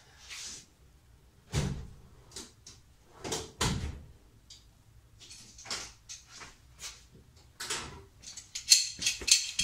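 Someone moving about a garage workspace: scattered knocks, with two heavier thumps in the first four seconds. Near the end comes a quick run of metal clinks as hand tools are handled, ahead of using channel-lock pliers on a stuck washer-tank cap.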